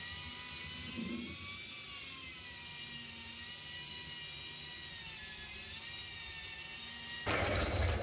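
Small electric power tool motor running steadily with a high whine that wavers slightly in pitch, stopping abruptly near the end.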